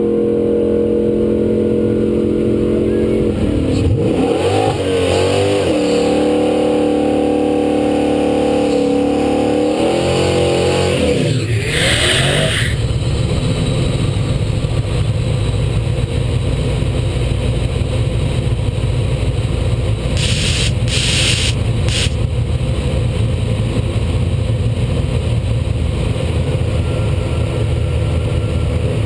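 Drag race car engine held at steady revs on the starting line, then launching and accelerating hard, its pitch climbing and dropping back through several gear changes for about eight seconds. From about twelve seconds in it gives way to a loud, rough, even rush as the car runs on down the track.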